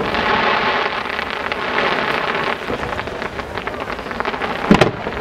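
Fireworks crackling: a dense, steady run of tiny crackles and fizzing from crackle-effect stars, then a single sharp shell burst near the end.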